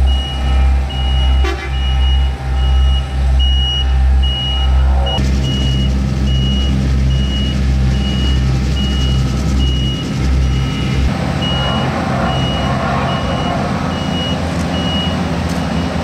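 Asphalt paving machinery running, with tandem road rollers and a tracked asphalt paver working together. A reversing alarm beeps steadily throughout, about three beeps every two seconds. A deep low drone pulses under it at first and drops away about eleven seconds in.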